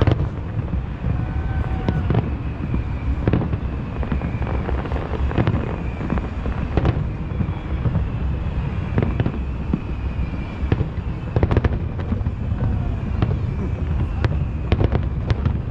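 Aerial fireworks shells bursting in a rapid, irregular string of booms and crackles over a steady low rumble.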